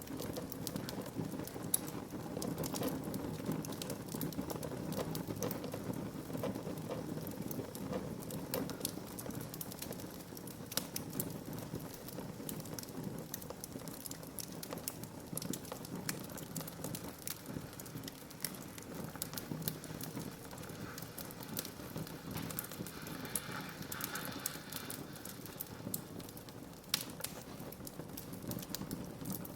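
Wood fire burning in a fireplace: a steady crackle and hiss, with many small sharp pops and a few louder ones.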